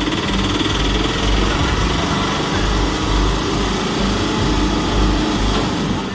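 Auto-rickshaw engine running steadily at low speed.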